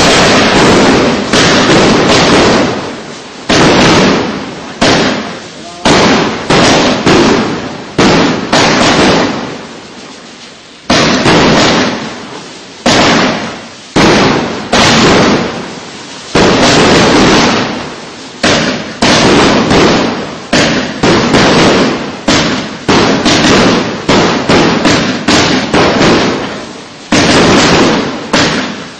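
Consumer firework battery (a 49-shot, 1.2-inch cake) firing shell after shell in quick succession, about one to two a second. Each is a sudden loud bang that dies away over about a second.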